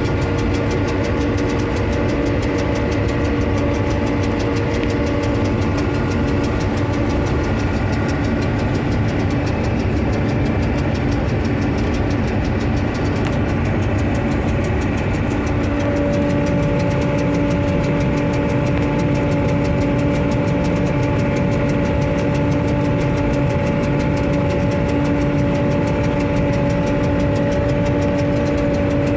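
John Deere 8820 combine running steadily while harvesting soybeans: a continuous drone from the engine and threshing machinery, with steady whining tones. A new tone joins about halfway through.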